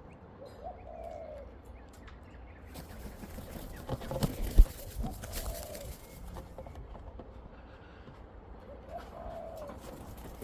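A dove cooing three times, about four seconds apart, each coo a short low arched note. Midway there is a burst of rustling noise ending in a sharp thump, the loudest sound.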